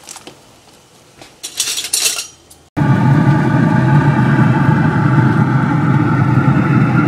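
A few short scrapes and clicks of a knife working along a fish on a cutting board; then, a little under three seconds in, an abrupt switch to a loud, steady mechanical rumble with a hum.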